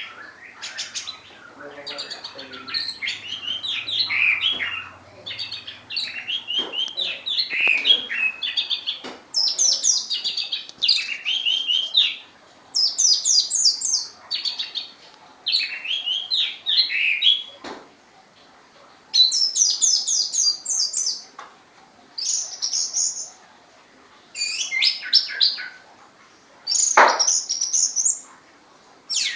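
Orange-headed thrush singing: loud, varied phrases of rapid, high notes in bursts of a second or two, separated by short pauses, with a single sharp knock near the end.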